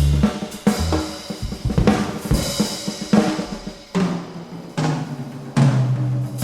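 Jazz drum kit playing a break on its own: snare and bass-drum hits and short rolls, with a few low bass notes, between a guitar solo and the horns coming back in.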